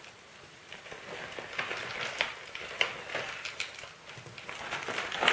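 Seramis orchid substrate poured from a crinkling plastic bag into a flowerpot: an irregular rustling hiss with scattered small clicks of the pieces landing.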